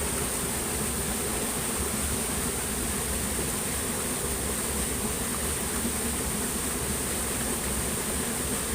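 Steady high-pitched insect chorus, a constant shrill drone with no breaks, over an even background hiss.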